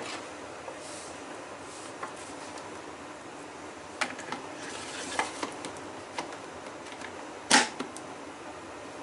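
Scattered light clicks and knocks from the parts of a Miele W1 washing machine's TwinDos dispenser being handled, a cluster in the middle and one louder knock near the end, over a steady faint hiss.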